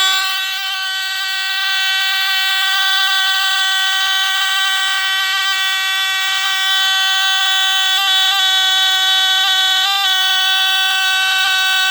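ARO (Vigilant) fire and burglar alarm's battery-powered DC buzzer, the classic DC squealer, sounding continuously as one steady, loud buzzing tone with a few brief wavers. It was set off as the batteries went in.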